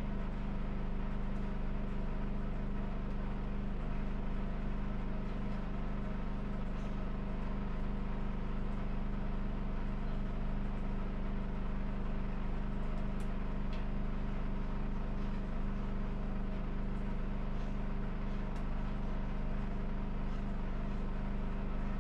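Steady machine hum at one constant pitch, with a few faint clicks about halfway through and near the end.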